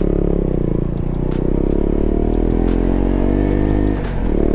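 Motorcycle engine running steadily as the bike rides along, dipping briefly about four seconds in before picking up again.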